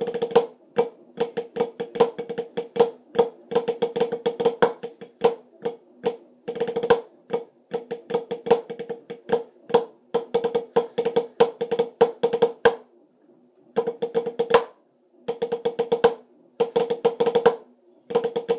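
Snare drum playing Swiss army triplets (a flam followed by a right-hand tap and a left-hand tap) over and over: a fast, even run of crisp strokes with a ringing drum tone. After about twelve seconds the playing breaks into short phrases with brief pauses between them.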